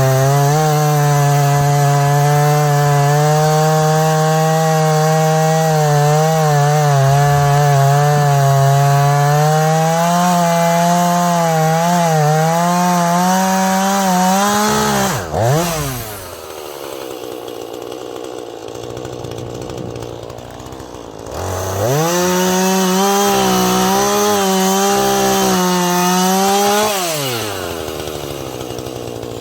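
Husqvarna 440e two-stroke chainsaw running at full throttle and cutting wood, its pitch wavering under load. About halfway through it drops to idle for several seconds, revs up to cut again, then falls back to idle near the end.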